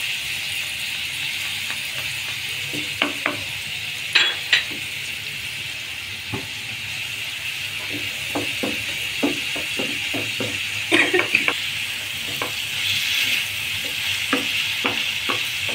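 Chicken pieces and chopped garlic sizzling in hot oil in a non-stick frying pan, with a steady sizzle throughout. A plastic slotted spatula stirring them gives scattered scrapes and clicks against the pan, in clusters a few seconds apart.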